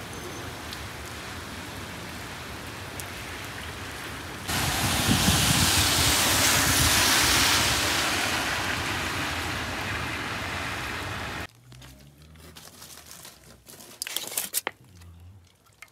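Steady rain falling on wet pavement, louder and heavier from about four and a half seconds in. It cuts off sharply at about eleven and a half seconds to a quiet room, where aluminium foil around food crinkles briefly near the end.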